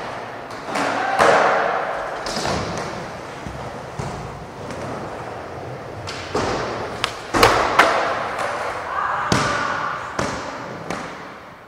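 Skateboards rolling on ramps and floor, with repeated sharp board clacks and heavy thuds, the loudest in a cluster of hits a little past the middle. A skater slams to the ground.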